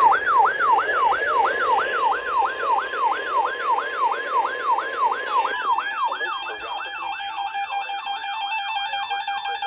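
Electronic siren-style alert tone, its pitch sweeping quickly downward over and over, about three to four times a second. About halfway through, a steady tone joins in under the sweeps.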